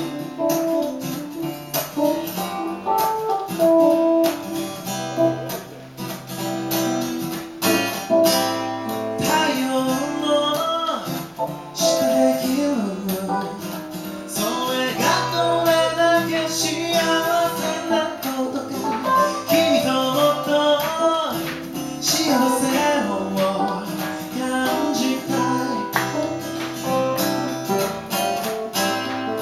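Live acoustic music led by guitar: notes and chords played continuously.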